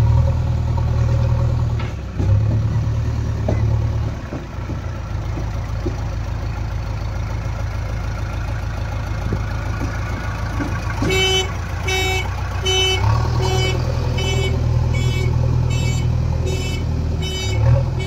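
JCB 3DX backhoe loader's diesel engine running steadily, working harder near the start and again later on. Over the last third its reversing alarm beeps evenly, about three beeps every two seconds.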